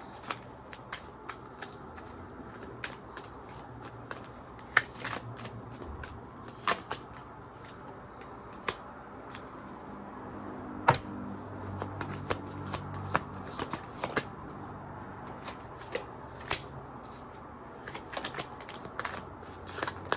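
A deck of tarot cards being shuffled and handled, with many irregular sharp snaps and taps of the cards.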